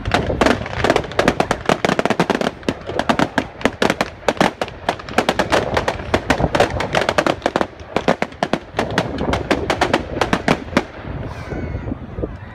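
Fireworks going off in rapid succession: a dense run of sharp bangs and crackles that thins out near the end.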